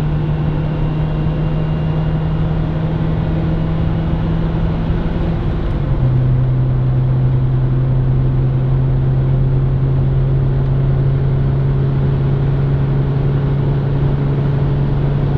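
Cabin sound of a Ford Mondeo Mk3 driving: a strong, steady low drone with overtones over road noise, stepping down to a lower pitch about six seconds in and then holding steady. This drone is the unusual in-car noise the owner is recording.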